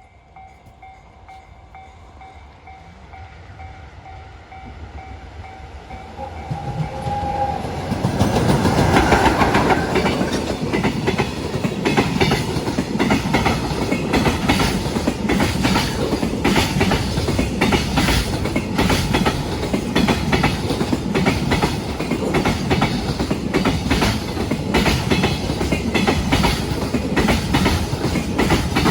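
A freight train approaches and passes a level crossing, its wheels clacking rhythmically over the rail joints. For the first seven seconds a crossing warning bell pulses faintly as the train draws near. The train's horn sounds about eight seconds in, as the passing noise rises to full loudness.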